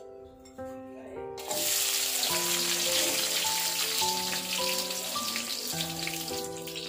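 Chopped onion tipped into hot oil in a wok, sizzling as it starts to sauté; the frying sets in about a second and a half in and carries on steadily, over background music.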